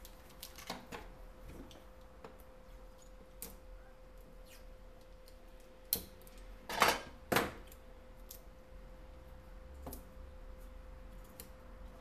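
Scattered light clicks and taps of small hard objects being handled, with three louder knocks about six to seven and a half seconds in, over a faint steady hum.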